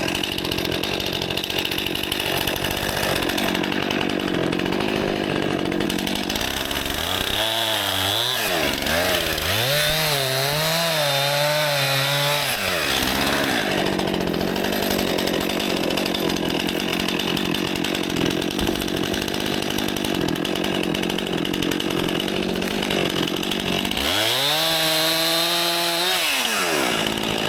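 Stihl MS261 two-stroke chainsaw running in the cold. Its engine note rises and falls through repeated throttle bursts: twice about a third of the way in and again near the end, as when cutting branches.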